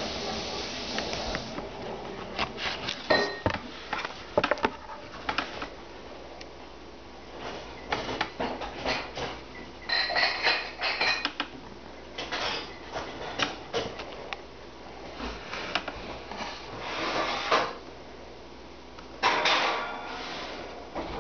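Close handling noise of a fixed-blade knife and its leather sheath being turned over in the hands: irregular rubbing, rustling and small clicks, with a few louder scrapes and knocks.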